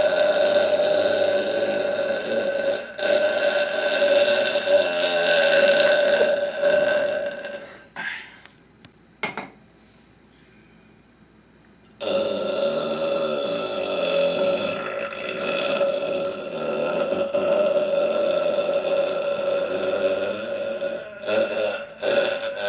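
A man burping: two very long, loud, sustained belches, each holding a steady pitch for many seconds. The first lasts about eight seconds and the second starts about twelve seconds in, with a near-silent gap and a click between them.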